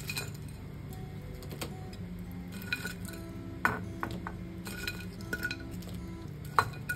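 Steel cookware and a glass serving plate clinking as pakoras are dropped by hand into a pot of kadhi: scattered short knocks and ringing clinks, the loudest about three and a half seconds in and again near the end.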